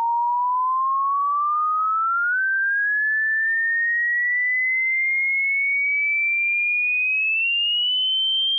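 Hearing-test sine tone sweeping slowly and steadily upward in pitch at an even loudness, a single pure whistle-like tone with a small upward jump about two and a half seconds in.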